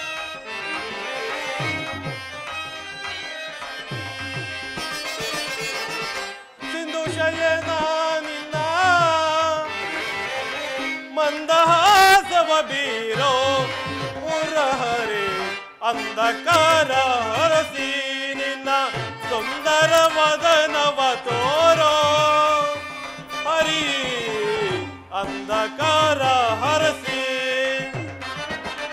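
Traditional Indian stage-drama music: a gliding, wavering melody over tabla drumming.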